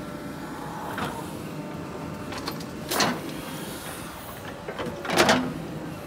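JCB 3DX backhoe loader's diesel engine running steadily under hydraulic load, with three short bursts of scraping and clatter from the bucket and soil: about a second in, at three seconds, and the loudest a little after five seconds.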